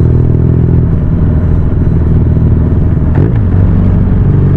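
Motorcycle engines running loudly, with changes in engine pitch as the bikes pull away from a stop and a short rising sound about three seconds in.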